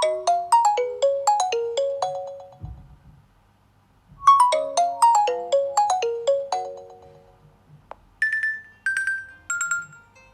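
Nokia 6.1 ringtone playing through the phone's speaker: a quick chiming melody of about a dozen notes, repeated about four seconds later, then three higher notes stepping down near the end.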